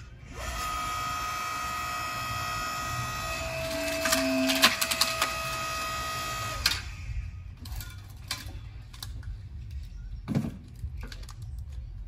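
Electric log splitter running with a steady whine for about six seconds. Its pitch dips slightly as the ram drives into a log, the wood cracks with several sharp snaps, and then the motor cuts off. Split pieces knock and thump as they are pulled off the beam.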